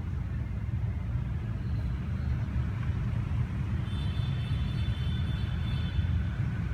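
Steady low rumble of nearby street traffic and engines. A thin high whine sounds for about two seconds starting around four seconds in.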